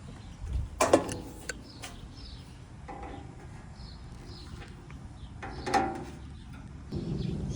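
Metal clanks and tool knocks from work on an air-conditioner condenser fan blade replacement: a few sharp knocks about a second in and another near six seconds. Birds chirp faintly in the background, and a low rumble starts near the end.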